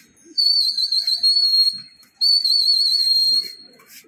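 Two long trilling whistle blasts with a short break between them, a pigeon flyer's whistle signalling his flock in the air.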